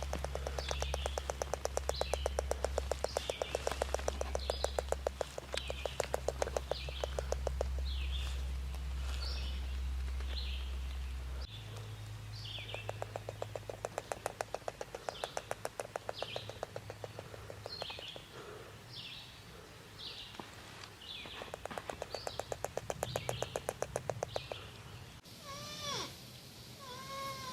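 Porcupine squeaking in short, high chirps, repeated a little over once a second, with several stretches of very rapid clicking. Near the end a different recording starts, with lower, arching whining calls.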